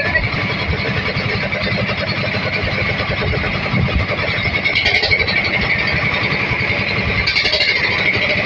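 Small boat engine running steadily, with a fast even firing beat and a steady high whine over it.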